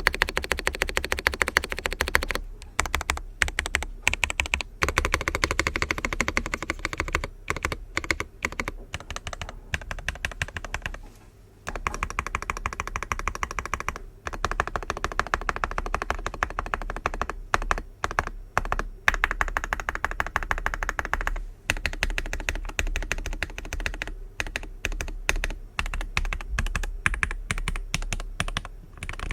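Fast typing on a Zoom65 v2 mechanical keyboard with factory-lubed Aqua King linear switches and an aluminium plate, the keys clacking in quick flurries with short pauses. Its foam mods and lubed screw-in stabilisers damp the sound.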